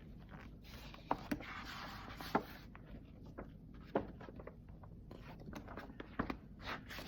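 Picture book being handled and its page turned: soft paper rustling with a few light taps and clicks.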